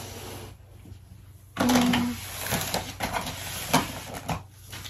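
Paper and packaging being handled while gift wrapping: a boxed toy is moved on wrapping paper, starting with a sudden burst of rustling about one and a half seconds in, followed by scattered crinkles and taps.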